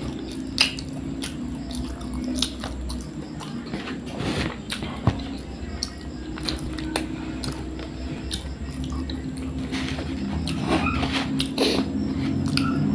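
A person chewing pizza, with scattered short mouth clicks.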